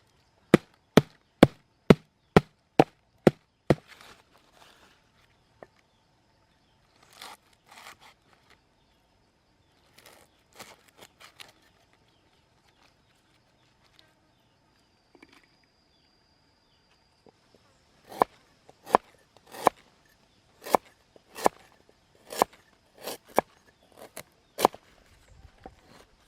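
Knife chopping on a wooden cutting board: a run of about eight sharp, evenly spaced strokes at roughly two a second, a few softer knocks, then another run of about ten strokes near the end.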